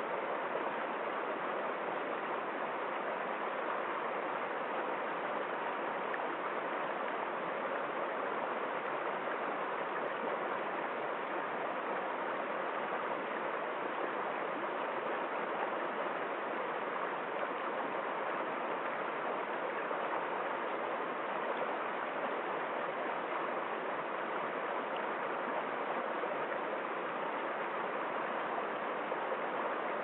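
Shallow stream running over rocks in small cascades: a steady, even rush of water.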